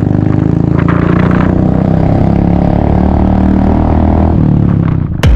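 Single-cylinder motorcycle engine running at a steady pace on the road, heard from the saddle with a fast, even beat. Music cuts in at the very end.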